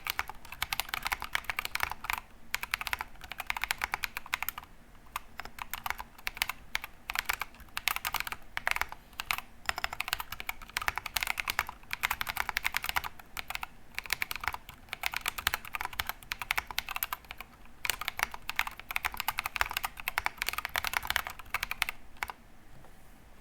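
Fast typing on a GK68XS mechanical keyboard with unlubed Drop + Invyr Holy Panda tactile switches and MT3 Susuwatari keycaps: dense runs of keystroke clacks broken by a few brief pauses, stopping about a second before the end.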